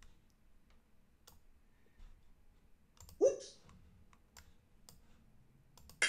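Scattered light computer mouse clicks. Right at the end a ringing chime begins: the app's correct-answer sound.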